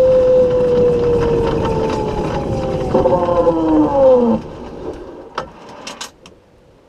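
Solar car's electric drive motor whining over road noise, its pitch slowly falling as the car loses speed on a steep climb, then sliding down sharply and cutting out about four seconds in as the motor trips out. A few sharp clicks follow.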